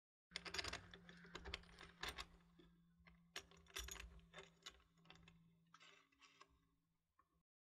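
Light, irregular metal clicks and clatter of an aluminium solar tilt leg being set into its U-foot and the bolt and nut fitted by hand, thinning out toward the end.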